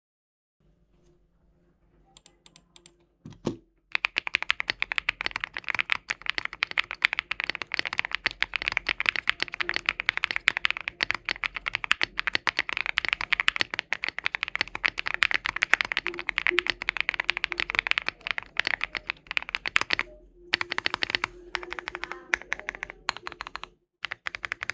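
Typing on a mechanical keyboard fitted with Epomaker Creamy Jade switches, as a fast, continuous run of keystrokes. A few scattered presses come first, then steady fast typing, with a brief pause about twenty seconds in before the typing resumes.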